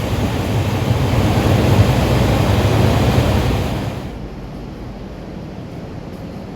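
Loud, steady rush of air from a large running fan, with a low hum beneath it. About four seconds in it drops suddenly to a much quieter steady hiss.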